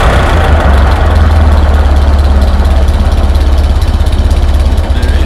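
David Brown tractor engine idling steadily with an even, low, rapid beat, running after its tappets were adjusted and its head gasket replaced.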